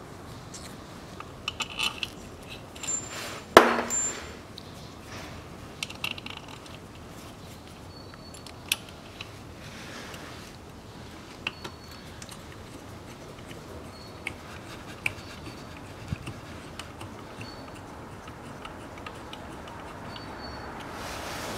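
Irregular small metallic clicks and taps from hands fitting parts onto a Haldex coupling under the car, with one sharp metal click about three and a half seconds in.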